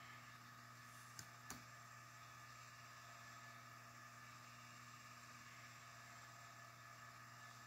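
Near silence: a steady faint hum, with two faint clicks close together about a second in.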